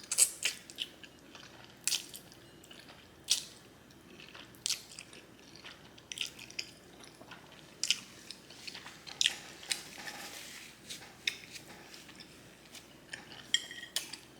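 Close-miked chewing of garlic noodles and shrimp: irregular wet mouth clicks and smacks, scattered through with a few sharper ones.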